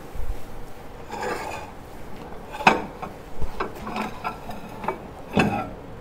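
A bowl being handled inside a microwave oven: a short scrape, then a series of sharp knocks and clatters against the turntable plate, the loudest about halfway through.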